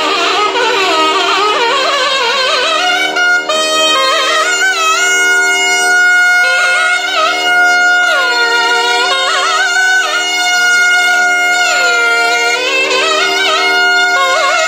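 Nadaswarams, South Indian double-reed pipes, playing a Carnatic melody full of sliding, bending notes over a steady drone. Twice in the second half the melody swoops deeply down and back up.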